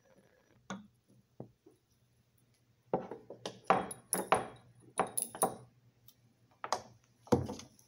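A run of sharp clinks and knocks: a glass test tube and its metal holder striking a wooden test tube rack as the tube is set in. A single click comes about a second in, most of the clinks fall in the second half, and a faint low hum runs underneath.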